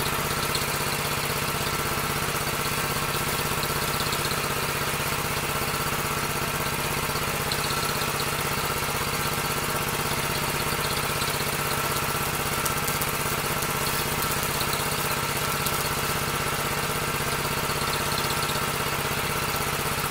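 A small engine running steadily, with an even drone that does not change.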